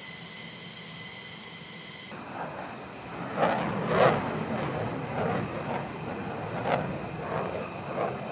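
Flight-line machinery noise: a steady high-pitched whine for the first two seconds, then a low steady rumble with a run of sharp knocks and clinks, the loudest about four seconds in.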